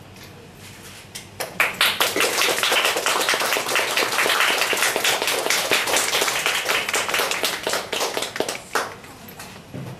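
Audience clapping, starting about a second and a half in and dying away near the end.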